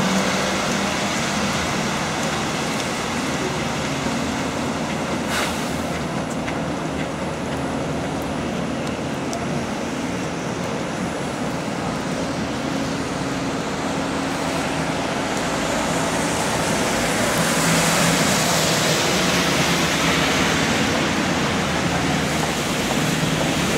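Double-decker buses and street traffic on a rain-wet road: a steady low engine hum under the hiss of tyres on wet tarmac, the hiss growing louder in the second half.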